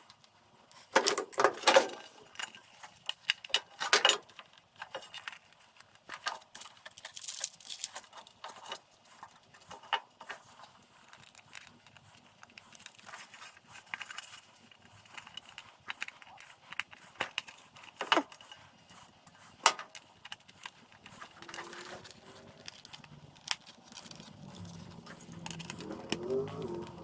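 Irregular metallic clicks, clinks and taps of hand tools and small metal parts being handled during bench work on a power cord reel, with a few sharper knocks about 1–2, 4 and 18 seconds in. A faint low pitched sound comes in near the end.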